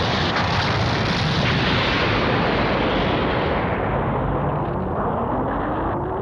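Cartoon explosion sound effect: a long, continuous blast roar. The roar loses its hiss after about three and a half seconds and carries on as a duller rumble, while a faint tone starts to rise slowly near the end.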